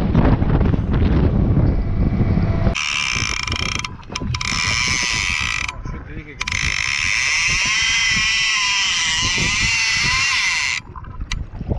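Wind buffeting the microphone over a running boat, then from about three seconds in a large conventional fishing reel buzzing loudly as a hooked bacota (copper shark) pulls line off it, the buzz stopping briefly twice and wavering in pitch as the run speeds and slows.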